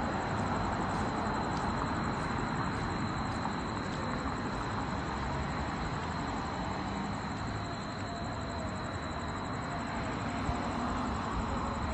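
Steady rush of road traffic.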